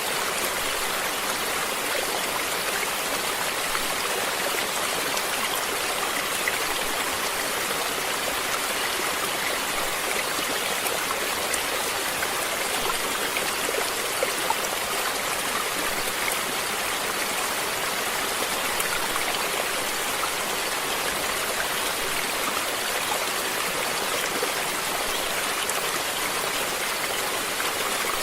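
Water of a stream flowing steadily, an even rushing hiss with a few faint drip-like ticks.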